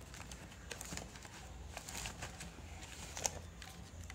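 Cardboard box and packaging being handled: scattered light knocks and rustles as a camera is lifted out by its strap, the sharpest click about three seconds in, over a steady low hum.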